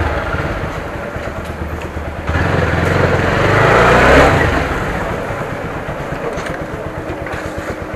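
TVS Apache RTR 160 4V's single-cylinder engine running at low revs as the bike rolls slowly, getting louder for a moment about four seconds in. From about five seconds it settles into an idle with a steady, even pulse.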